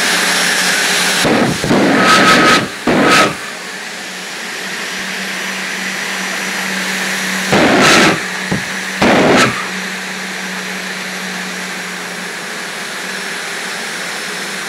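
Jet dragster's turbine engine running, with short, loud afterburner blasts in two groups, about two seconds in and again about eight to nine seconds in.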